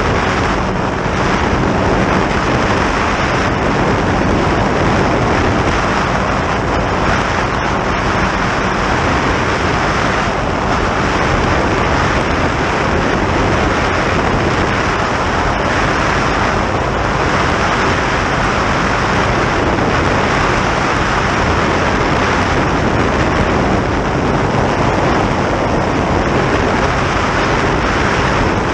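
Motorboat running steadily at speed, a loud, even rush of wind over the microphone and water against the hull over a low engine hum.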